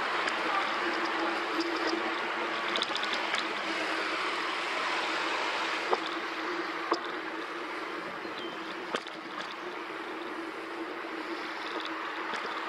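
Steady rushing noise of a bicycle being ridden: wind over the microphone and tyres rolling on paving, under a steady low hum. A few sharp knocks come about six, seven and nine seconds in.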